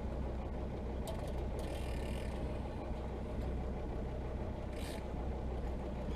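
Sport-fishing boat's engine running steadily, a low, even sound with no change in pitch, with two short hissing noises, about two seconds in and near five seconds.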